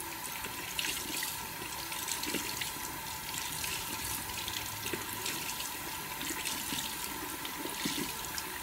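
Bathroom sink tap running steadily, its stream splashing into the basin, while a soapy makeup sponge is squeezed and rubbed under it, adding small irregular wet splashes.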